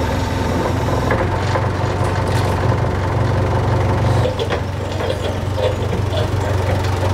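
Engine idling steadily with a low, even hum, a few light clicks over it in the first couple of seconds.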